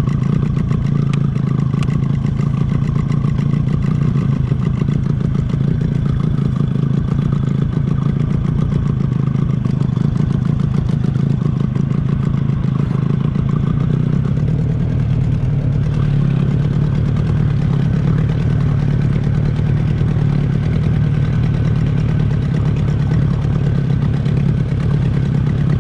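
Outboard motor of a tiller-steered boat running steadily at low trolling speed, an even engine hum with no change in pace.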